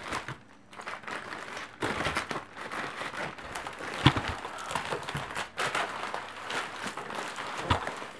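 Plastic mailer wrapping and cardboard packaging crinkling and rustling as they are torn and pulled apart, with a sharper knock about halfway through and another near the end.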